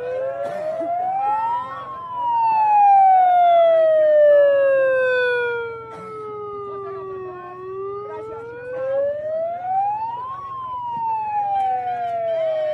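Emergency vehicle siren sounding a slow wail: the pitch rises to a peak about two seconds in, falls slowly for about five seconds, then rises again to a second peak near ten seconds and starts falling once more.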